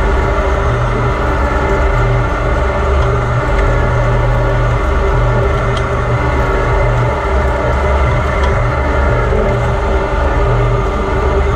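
Grizzly gunsmith metal lathe running under load while a large twist drill in the tailstock bores deep into a spinning steel bar: a steady motor and gear hum with a few faint ticks.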